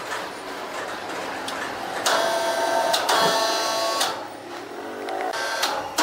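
Band sawmill machinery running with a high whine of several steady tones, coming in suddenly about two seconds in and easing off near four seconds. A rising whine follows near the end as the machinery speeds up again.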